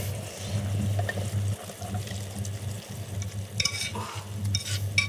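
Pan of braising juices with red wine and poultry stock sizzling and simmering on the hob, with a few clinks of kitchen utensils against dishes near the end.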